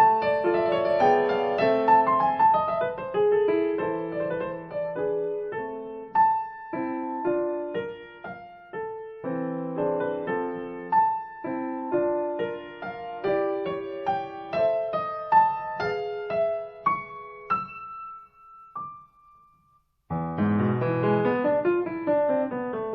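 Background piano music, a melody over a busy accompaniment that thins out and breaks off briefly about three-quarters of the way in, then starts again fuller.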